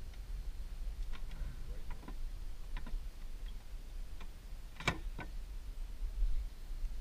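A few light clicks and knocks at uneven intervals, the sharpest about five seconds in, over a steady low rumble.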